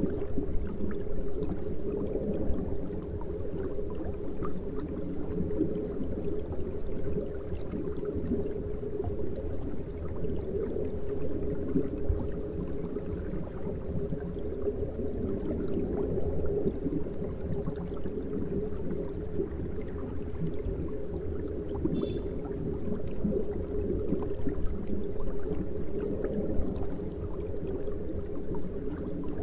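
Air-driven aquarium sponge filters bubbling in fish tanks: a steady, unbroken bubbling of water.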